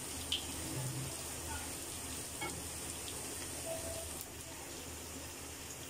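Sliced onion and ground spices sizzling steadily in hot oil in a nonstick wok, with a couple of faint light clicks.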